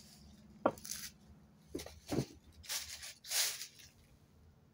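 Footsteps crunching on dry fallen leaves and debris: a handful of short crunches and rustles over about three seconds.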